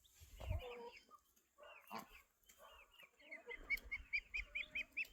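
Chickens calling, a few scattered calls and then a quick run of short, high, repeated calls, about five a second, through the second half.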